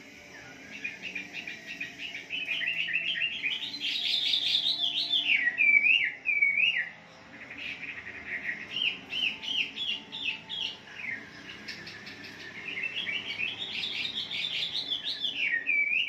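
Chinese hwamei singing: three long phrases of rapid, varied whistled notes, each ending in slurred up-and-down whistles, with short pauses between.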